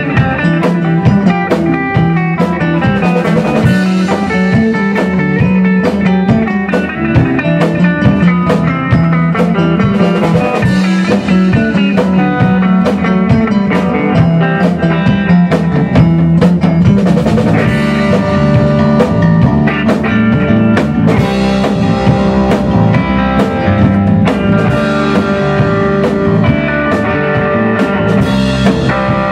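A band playing live with no singing: electric guitar over a Tama drum kit keeping a steady beat.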